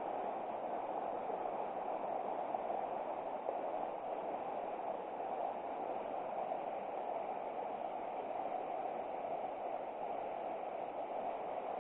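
River water flowing, a steady even rush with no breaks.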